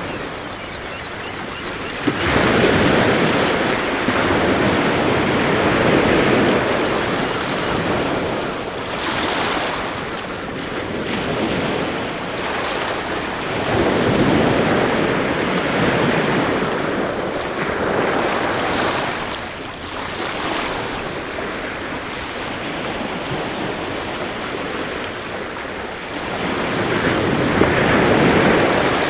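Sea waves surging and washing in, swelling and ebbing every few seconds, with some wind; the sound steps up suddenly about two seconds in.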